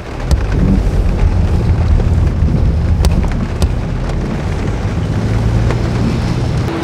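Car interior noise while driving in the rain: a loud, steady, deep rumble of road and engine with rain hiss over it, and a couple of faint ticks about three seconds in.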